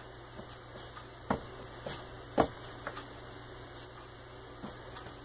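Bread dough being folded and pressed by hand on a countertop: a few soft knocks, two louder ones about a second and two and a half seconds in, over a steady low hum.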